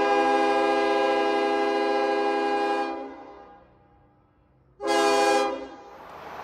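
Diesel locomotive multi-chime air horn: one long blast of about three seconds, then a short blast about two seconds later. A steady rushing noise takes over near the end.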